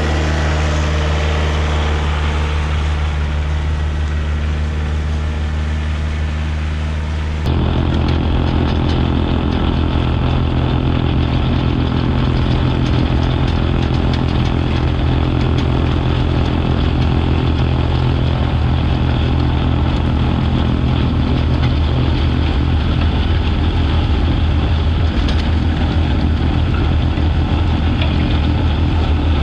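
Kioti DK40se tractor's diesel engine running steadily, driving a rear-mounted MK Martin Meteor PTO snowblower as it chews through snow and throws it out the chute. About seven seconds in, the sound shifts abruptly to a closer, noisier mix with more of the rushing snow and blower.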